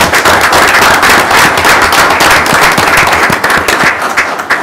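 Audience applauding in a meeting room, a dense patter of many hands clapping that thins out near the end.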